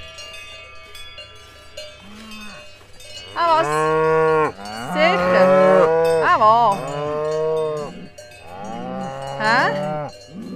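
Cows mooing, about three long wavering calls and a short one, with cowbells ringing among the herd.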